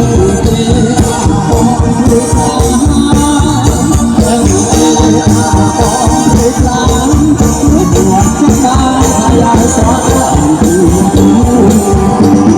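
Khmer romvong dance song played loud, with a singing voice over a steady, fast beat and a rattling shaker.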